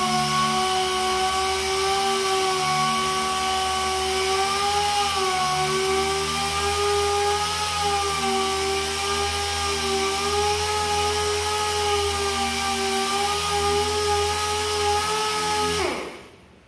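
Pneumatic random orbital sander running with a steady whine, its pitch wavering slightly as it is worked over a painted truck tailgate. Near the end it is lifted off and the air is cut, and the whine winds down quickly to a stop.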